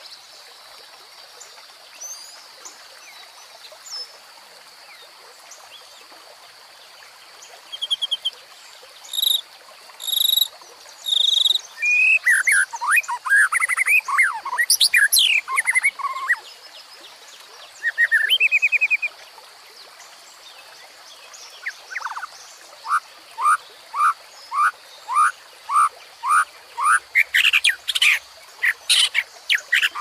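Songbirds singing and calling over the steady rush of a shallow forest stream over rocks. Near the end one bird repeats a short falling note about ten times in a quick series.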